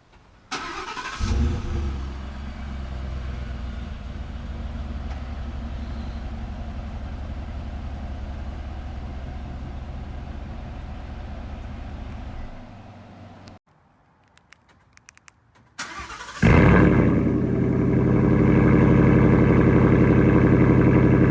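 Ford F-150's 5.0 L Coyote V8 warm-started on the stock exhaust: a brief crank, it catches and settles into a steady idle. After a cut, a second start that is much louder and settles into a steady idle.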